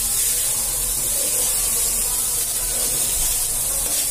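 Brown rice sizzling steadily as it is stir-fried into sinangag in a metal pan, with a spatula stirring through it.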